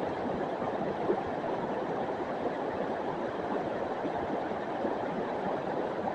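River water flowing, a steady rushing sound.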